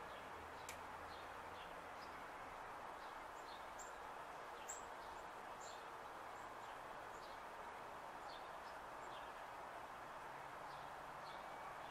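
Faint outdoor ambience: small birds chirping sporadically in short high notes over a steady background hiss, with one sharper chirp about halfway through.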